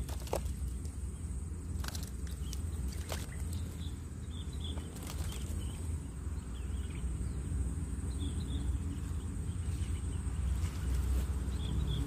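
Rural outdoor ambience: a steady high-pitched insect drone with short bird chirps now and then, over a low rumble. A few sharp clicks come in the first five seconds.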